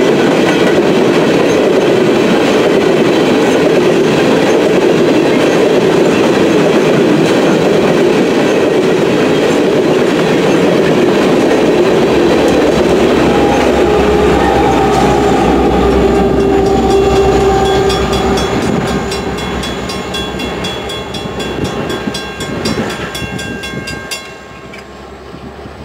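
Coal hopper cars rolling past with steady wheel rattle and rumble, and the train's rear BNSF SD70ACe locomotive passing about halfway through with a deep engine rumble. The train noise fades off after that, leaving a grade-crossing bell ringing steadily until near the end.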